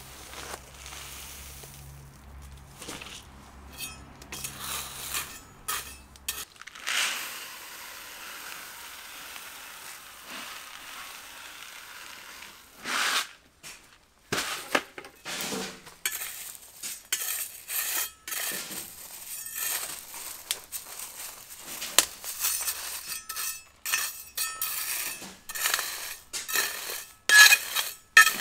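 Gravel scraped and shovelled with a metal hand tool: many short crunching scrapes and clinks of stones. They come thick and fast in the second half and are loudest near the end.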